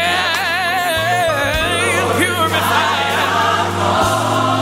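Gospel song with choir: a lead voice holds a long, wavering note for the first second and a half, and the choir and a steady bass line carry on beneath.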